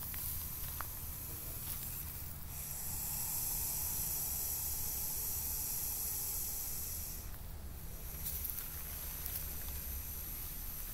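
An Indian rock python hissing: one long, high hiss that starts about two seconds in and lasts about five seconds.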